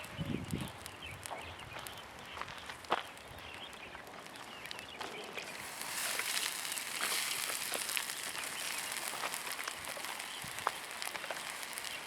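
Burning chain of matches: match heads flaring and fizzing in quick succession, with scattered sharp crackles, growing denser and louder about six seconds in.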